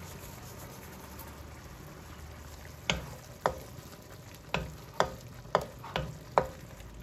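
Cherry-tomato sauce sizzling in a wok, then, from about three seconds in, a wooden spoon stirring it and knocking against the pan about twice a second.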